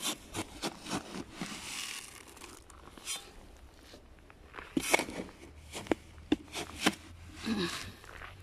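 Footsteps crunching on packed, icy snow. A quick run of sharp crunches comes at the start, then a short hiss, then another run of crunches about five seconds in.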